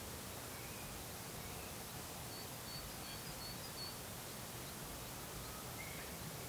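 Faint outdoor ambience: a steady, even hiss with a few faint, short, high chirps from distant birds.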